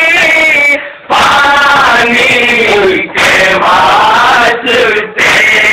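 Men chanting a nauha, a Shia lamentation sung in Urdu, together in loud sung lines with brief pauses between them.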